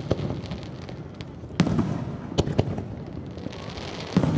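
Fireworks shells bursting overhead: a handful of sharp bangs spread across a few seconds, two close together in the middle, the loudest near the end.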